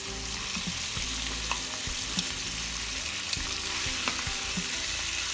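Bacon-wrapped fillet steaks sizzling steadily as they fry in butter and oil in a stainless steel pan, with a few sharp pops and clicks as they are turned over.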